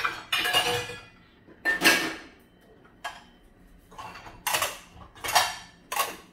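Dishes and cutlery clattering: a series of short knocks and clinks, roughly one a second, each ringing briefly.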